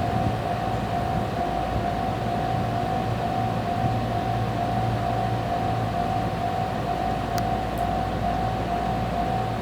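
Japanese railway level-crossing warning bell ringing continuously in a fast, evenly repeating ding, over the low steady hum of an electric train standing at the crossing.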